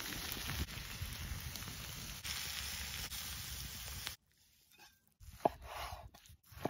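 Tenderloin sizzling on a hot stone, a steady hiss with small crackles. It cuts off abruptly about four seconds in, leaving faint scattered sounds.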